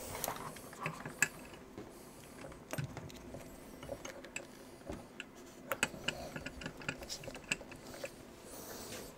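Irregular light clicks, taps and small knocks of hands working on an opened 2011 iMac, handling the bare LCD panel and its cables. There is one sharper click about a second in and a quick run of clicks around six seconds.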